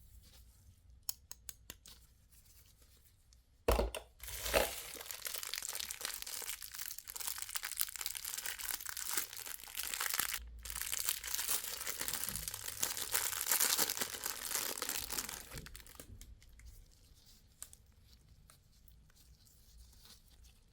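Plastic candy wrapper being torn open and crinkled. A few light clicks come first, then a sharp tear about four seconds in, followed by about twelve seconds of continuous crinkling with a short break in the middle, and then only faint ticks.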